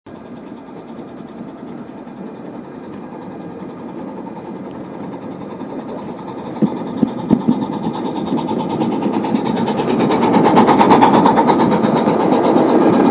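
Gauge 1 model train rolling on the track, its wheels clicking over the rail joints, growing steadily louder as it approaches and passes close by. A few sharper clicks come about halfway through.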